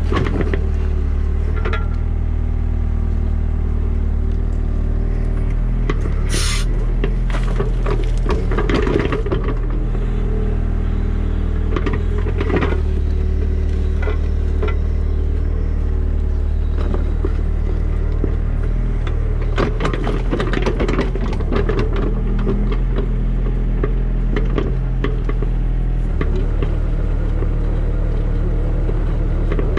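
Diesel engine of an earthmoving machine running steadily under changing load, with clanks and scraping at several points while it digs.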